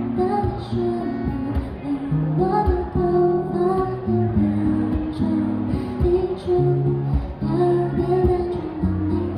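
Acoustic guitar strummed, accompanying a voice singing a slow, gentle pop song.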